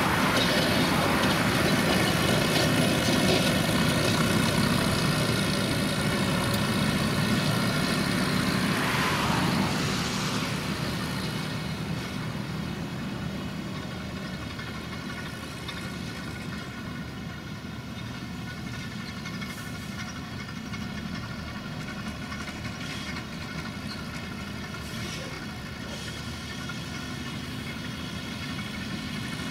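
Tractor engines running with a Krone round baler and a tractor-mounted bale wrapper working at silage baling. The engines are loud at first and drop to a lower, steady level about ten seconds in.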